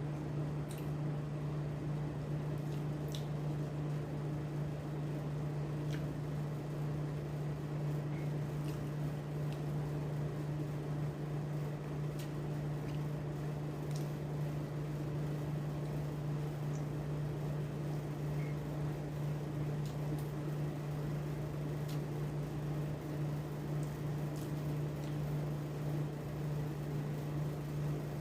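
A steady low hum from a running motor or appliance, with a few faint, scattered clicks over it.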